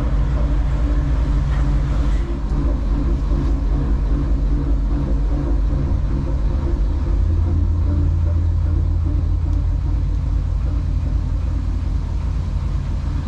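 A Dutch barge's diesel engine running steadily under way, a low, even hum whose deepest part grows stronger about halfway through.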